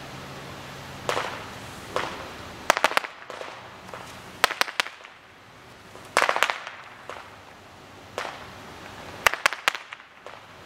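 Fireworks going off: a series of sharp bangs and crackles, some single and some in rapid clusters of three or four, the loudest clusters near the start and toward the end.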